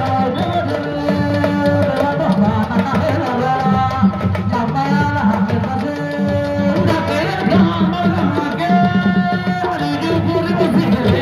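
Music: steady hand drumming with a melody of long held notes over it.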